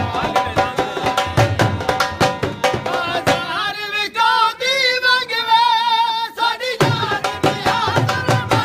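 Dhol, the double-headed barrel drum, beaten in a fast folk rhythm under a melody. About three and a half seconds in the drumming stops and a wavering melody with heavy vibrato carries on alone, then the dhol comes back in near the end.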